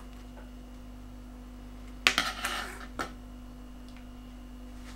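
Steel scissors set down on a table: a sudden knock and short rustle about two seconds in, then a single tap about a second later, over a low steady hum.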